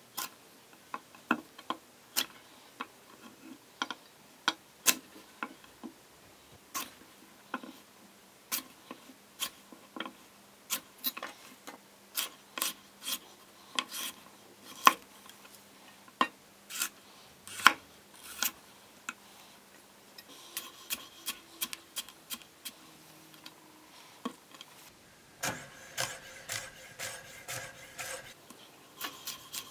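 Zelite Infinity 10-inch chef's knife cutting through raw carrot and striking an end-grain wooden board. Single crisp cuts come a second or so apart, then turn into fast, steady chopping about twenty seconds in.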